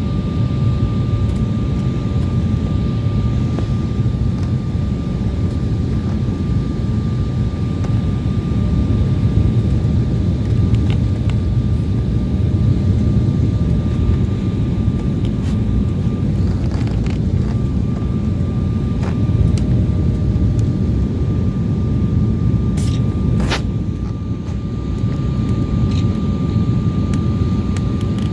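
Jet airliner cabin noise: a steady low rumble of engines and rushing air heard from inside the passenger cabin, with a thin steady whine running through it. A brief sharp click comes about three quarters of the way through.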